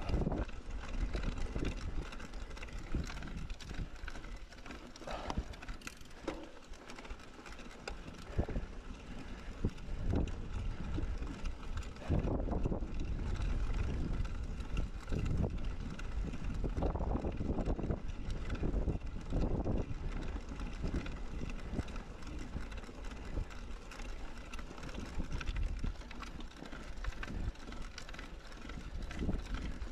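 Mountain bike being ridden on a trail: tyre noise and frequent knocks and rattles from the bike over uneven ground, with wind rumbling on the microphone.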